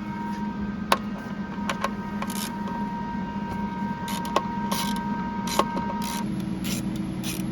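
A tool working the 7 mm screws out of the speaker pod behind a Jeep Wrangler JKU's dashboard: a few scattered sharp clicks and taps of metal, over a steady hum.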